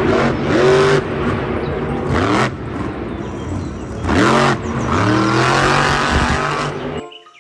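Car engine revving up and down in repeated rising and falling sweeps, cutting off abruptly near the end.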